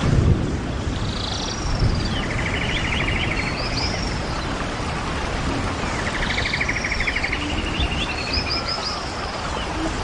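A bird singing the same song phrase twice, about five seconds apart: each phrase has a short high burst, a fast rattling trill and a few high arching notes. Under it runs steady low rumbling noise with a few dull thumps.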